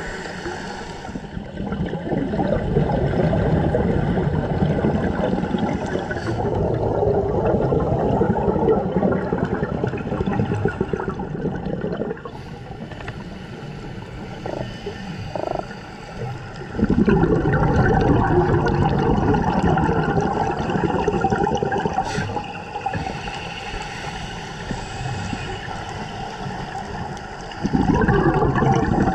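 Underwater gurgling and rumble of scuba divers' exhaled bubbles, coming in loud surges several seconds long with quieter muffled water noise between.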